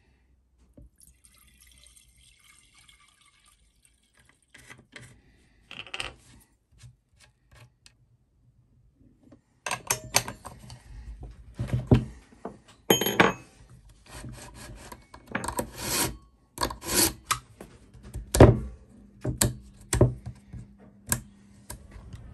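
Hands working on a vintage Stihl 020 AV chainsaw's bar and chain: a few faint clicks, then from about ten seconds in a busy run of irregular metal clacks, rattles and scrapes as the chain and parts are handled and fitted.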